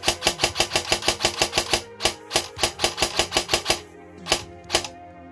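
Evolution Airsoft AEG dry-firing: its gearbox cycles in a rapid string of shots, about eight a second, pauses briefly, runs again, then fires a few single shots near the end.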